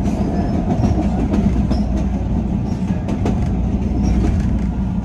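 CTA Red Line rapid-transit train running on the rails: a loud, steady low rumble, with a cluster of wheel clicks about three seconds in and a few faint, brief high squeaks.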